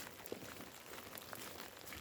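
Light rain falling: a faint, even hiss with scattered small drip ticks.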